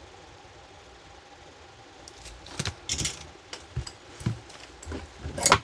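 A faint steady hum, then from about two seconds in a run of small sharp clicks and taps as hand tools and the cable's connector and wires are handled. The loudest click comes near the end.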